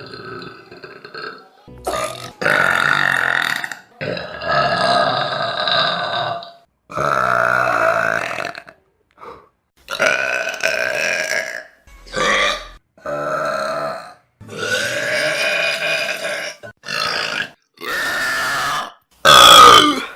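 A rapid string of about a dozen loud, drawn-out human burps, one after another with short breaks between them. The loudest is near the end.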